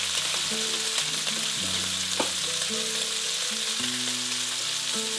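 Diced pancetta and crushed garlic sizzling steadily in a frying pan as they are stirred, with a few sharp clicks of a utensil against the pan. A soft melody of stepping notes plays underneath.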